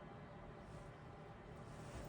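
Steady low hiss and hum of a room heater, with a sleeping person's faint breathing.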